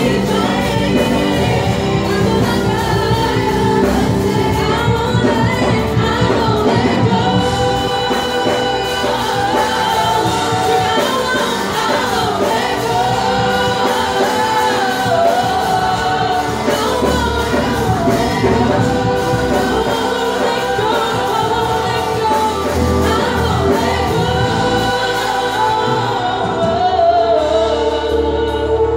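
A small vocal group singing a gospel song together into microphones, with melodic lines rising and falling throughout.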